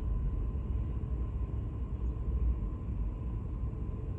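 Steady low rumble of a Boeing 787 Dreamliner's jet engines as the airliner moves along the airfield, with a faint steady whine above it.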